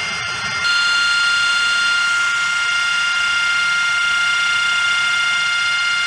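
AV-8B Harrier II's Rolls-Royce Pegasus turbofan running at low power on the ground: a loud, steady jet whine with several high tones over a rushing noise. It steps up louder less than a second in.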